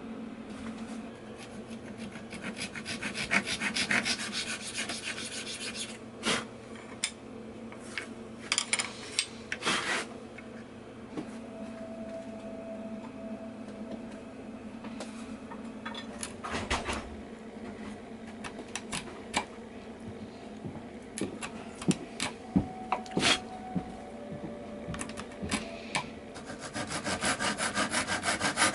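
Fine-toothed hand saw cutting a thin strip of dark hardwood: a rapid, even run of strokes starts near the end and quickly grows loud. A similar run of rasping strokes builds for a few seconds near the start, and in between there are scattered light knocks and clicks over a low steady hum.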